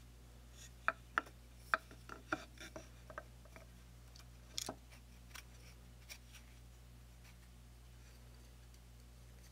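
Faint clicks and light taps from handling a steel lag bolt with a lock nut on it as it is fitted into a wooden handle, a quick cluster in the first few seconds and a few more in the middle, over a low steady hum.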